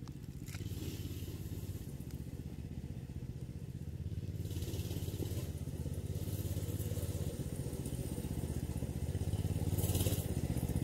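Coleman BT200X mini bike's single-cylinder four-stroke engine running steadily as the bike approaches, growing gradually louder as it nears.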